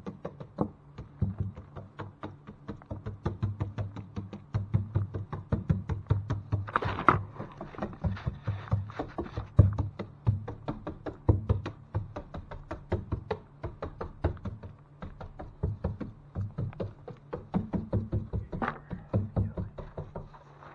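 Background music with a steady, fast beat and a bass line.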